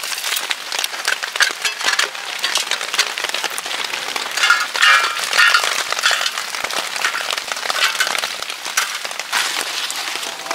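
Steady rain pattering on a tent, with light metallic clinks and rattles as a thin folding metal fire box and a perforated grill plate are handled.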